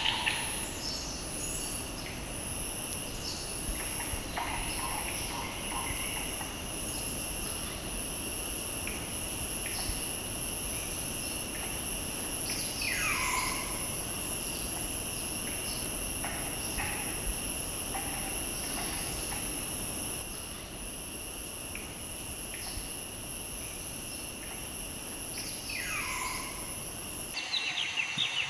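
Forest ambience: insects buzz steadily in a high tone, pulsing at first and then continuous, with scattered short bird calls. Two calls sweep downward in pitch, one about halfway through and one near the end.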